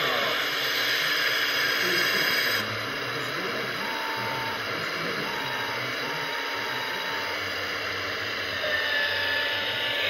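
Radio-controlled Liebherr 926 model excavator digging, its hydraulic pump running with a steady whirring hiss. The sound drops in level about two and a half seconds in, and a few short whines come and go in the middle.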